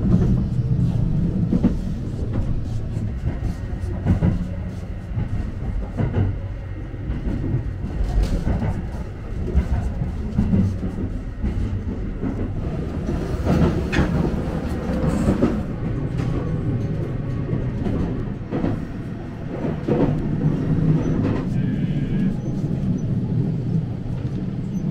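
Running noise heard inside the Sunrise Izumo sleeper train (a 285 series electric multiple unit) while it is under way: a steady low rumble with frequent clicks and knocks from the rails and the car body.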